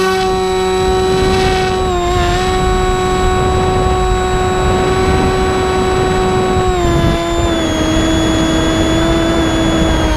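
Finwing Penguin's electric motor and pusher propeller running steadily in flight, a whine whose pitch steps down slightly about two seconds in and again around seven seconds as the throttle eases. Underneath is a rushing low noise.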